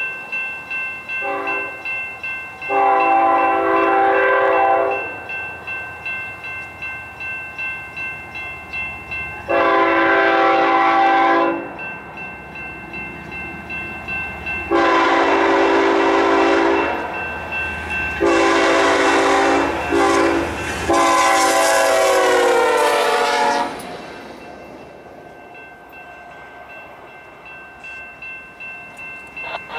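Diesel freight locomotive's multi-chime air horn blowing as the train approaches: two long blasts several seconds apart, then the long-long-short-long grade-crossing signal, the final long blast sliding down in pitch as the train draws near. Gusty wind buffets the microphone between blasts.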